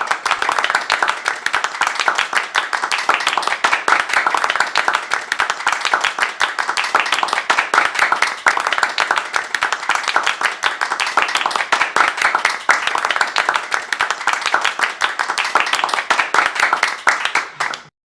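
Applause: many hands clapping in dense, overlapping claps at a steady level, cutting off abruptly near the end.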